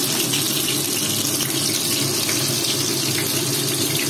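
Food cooking in a wok on a gas burner: a steady sizzling hiss with a low hum underneath and a few faint pops.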